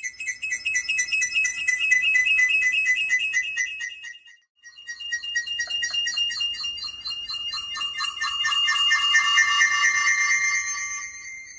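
Synthesized horror sound effect: high, rapidly pulsing electronic tones in two stretches, broken by a short gap about four seconds in. In the second stretch a lower tone joins and the sound swells louder, then fades near the end.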